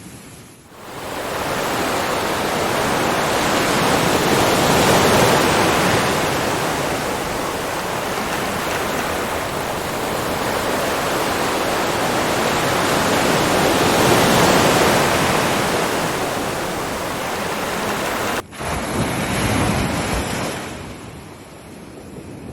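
Ocean waves breaking and washing ashore. Two long surges build and fade, then a sudden cut leads into one more wave that dies away near the end.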